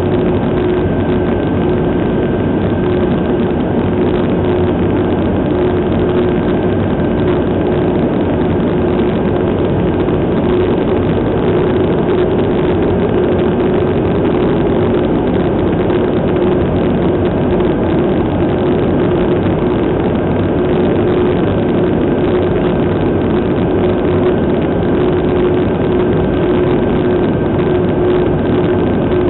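Steady cabin drone of an aircraft in cruise flight, its engines and airflow heard from inside the cabin: an even rushing noise with a constant low hum and a faint high whine held throughout.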